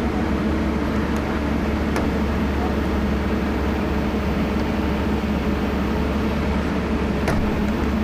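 Heavy diesel engine of the recovery machinery running steadily under load, with a few faint clicks or knocks over it.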